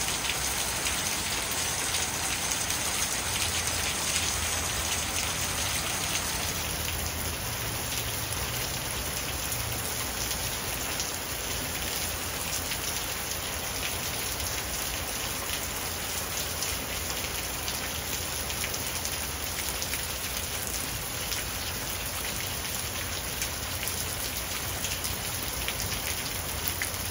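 Heavy rain falling steadily in a downpour, an even hiss of countless drops striking the yard and porch roof.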